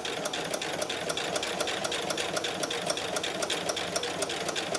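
Singer Quantum 7350 computerized sewing machine stitching steadily at slow speed, its needle mechanism ticking evenly several times a second over the motor's hum.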